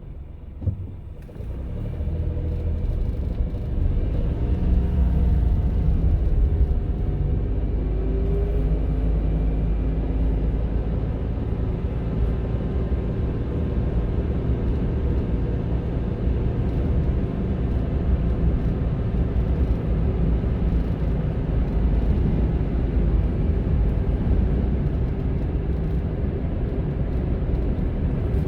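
Honda N-ONE kei car under way: after a single click near the start, engine and road noise build over the first few seconds with a rising engine note as it pulls away. It then settles into a steady low driving rumble.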